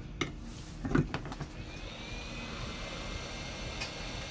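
A knock about a second in, then a hot-air rework station starting up: its fan blows a steady hiss of air, with a faint rising whine as it spins up, to heat the logic board.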